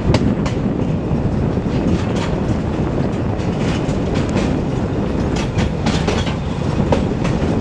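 Narrow-gauge railway carriage running along the track: a steady rumble of wheels on rails with scattered clicks and clacks, heard from an open-sided car.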